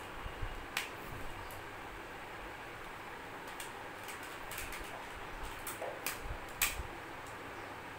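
Plastic toy train track pieces clicking and clattering as they are handled and fitted together on a tile floor, a few sharp clicks scattered through, the loudest about six and a half seconds in.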